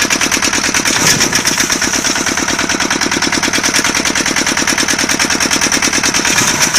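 Single-cylinder diesel engine of a walk-behind tractor idling with a steady, fast chugging beat of about a dozen firing strokes a second.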